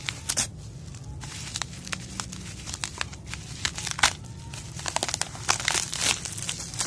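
Plastic packaging crinkling and crackling as hands unwrap a glass pot lid from clear plastic and bubble wrap, in quick irregular crackles that come thickest near the middle and toward the end.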